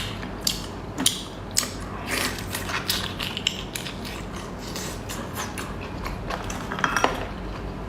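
A person chewing seafood with their mouth close to the microphone: irregular wet clicks and smacks.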